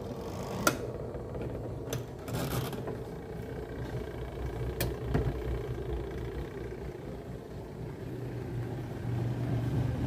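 Sharp twin-tub washing machine's wash motor running steadily with a low hum, turning the pulsator smoothly after repair of a fault where it only hummed and would not turn. A few short clicks sound in the first five seconds.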